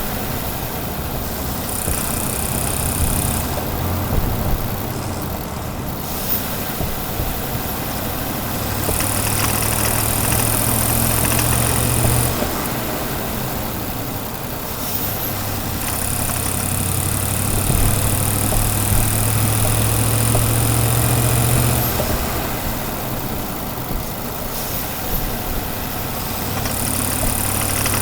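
2018 Ford F-150's 5.0-litre V8 driving in city traffic, pulling in four spells of a few seconds each, when a steady engine drone and a high tone come up, and easing off between them. It runs under light acceleration, where the owner reports a knocking noise that comes with oil and coolant consumption.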